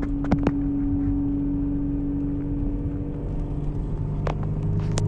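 Inside a moving car: steady engine and road rumble with a held hum, and a few short sharp clicks about a third of a second in, again after four seconds, and just before the end.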